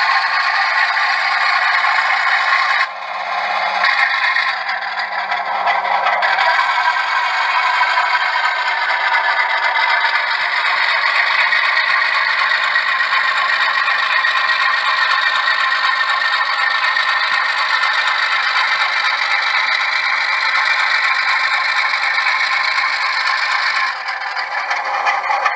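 Model Alco RS-11 diesel locomotive running along the layout's track, giving a steady rattling, scraping running noise that dips briefly about three seconds in and again near the end as it rolls into view.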